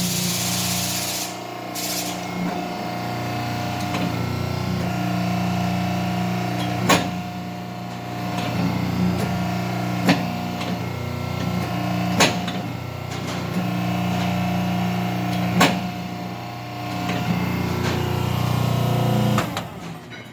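A machine running with a steady hum, with four sharp clicks along the way, then shutting off about a second before the end.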